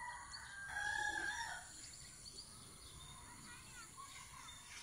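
A rooster crowing, faint, about a second in, with fainter bird calls after it.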